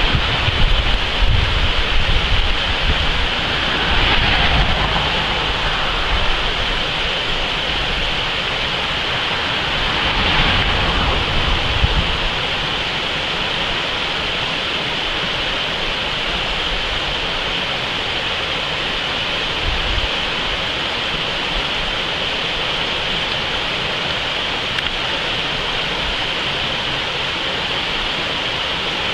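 Rushing water of a boulder-strewn creek tumbling through rapids: a steady, full hiss of white water. During roughly the first twelve seconds, low rumbling buffets on the microphone sit under it, then die away.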